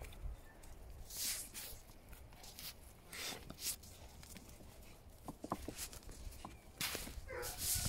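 Grand Griffon Vendéen puppy sniffing in short bursts with its nose in the crevices of a rock pile, scenting a blood trail. A few faint clicks come about five and a half seconds in.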